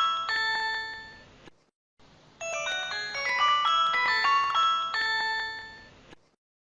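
Nokia mobile phone ringtone: a bright chiming melody of quick bell-like notes that ring into each other. The phrase fades out, then plays again after a short gap.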